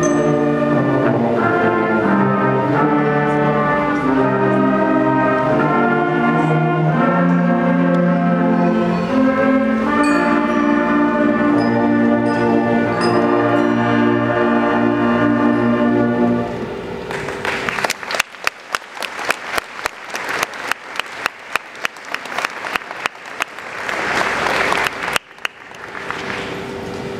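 School concert band of woodwinds and brass playing, finishing on a held chord a little over halfway through, followed by audience applause that dies away near the end.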